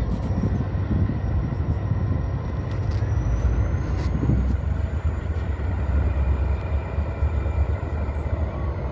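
Diesel locomotives of a slow CSX freight train running across a bridge: a steady low rumble with faint steady tones above it.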